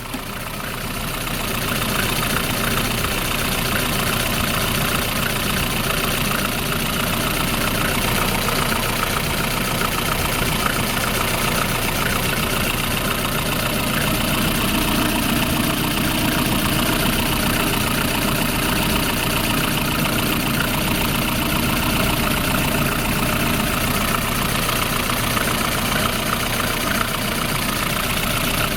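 Engine idling steadily, running evenly after a service with a new spark plug and filters.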